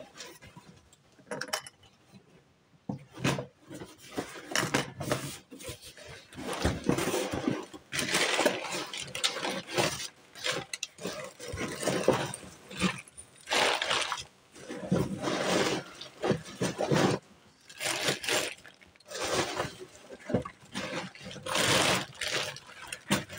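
Crumpled kraft packing paper rustling and crackling in repeated bouts as it is pulled out of a cardboard box, then plastic bags rustling as they are lifted out near the end.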